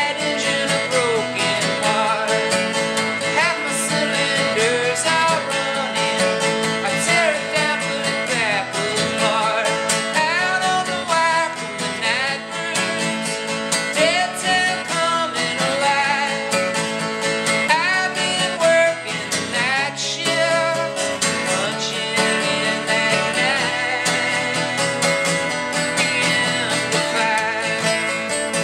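A man singing a song while playing an acoustic guitar, performed live.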